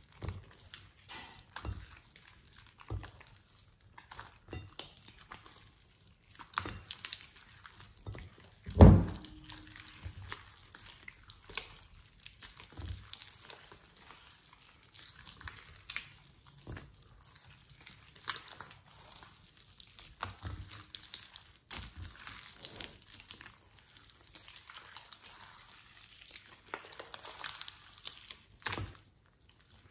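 Thick slime being kneaded, folded and stretched by hand in a glass bowl: irregular wet squelching and crackling as air pockets pop. One much louder thump comes about nine seconds in.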